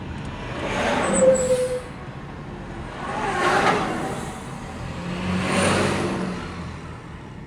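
Three trucks passing close by one after another, each rising to a peak of tyre and engine noise and fading away.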